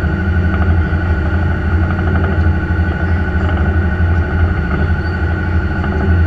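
A fishing boat's engines running steadily under way: a low, even drone, with the rush of the churning wake behind.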